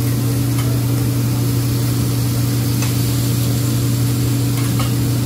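Steady low hum of a hibachi grill's exhaust hood fan, with an even hiss over it.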